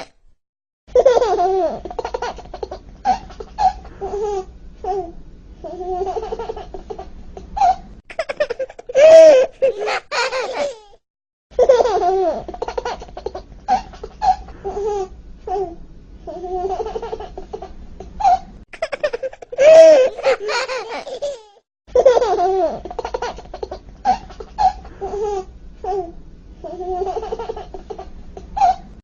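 A baby's voice making short cries and laughing sounds; the same stretch of about seven seconds is heard three times over, with brief gaps between.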